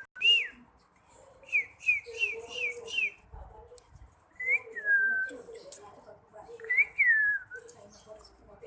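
Pet parrot whistling: a falling whistle, a quick run of five short whistles, then two longer whistles that slide down in pitch.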